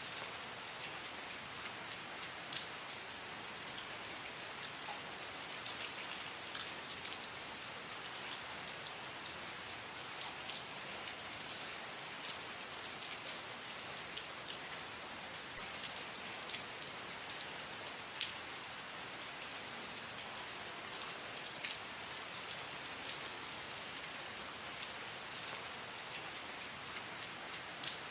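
Steady rain falling, an even hiss with scattered sharper drips and taps of individual drops landing.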